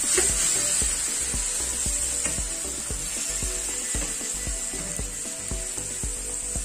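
Pad thai noodles sizzling steadily as they stir-fry in a hot pan with the sauce, with background music underneath.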